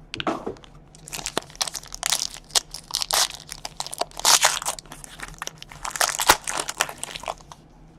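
Crinkling, crackling wrapper being handled and torn as trading card packs are opened, in a steady run of irregular crunchy rustles.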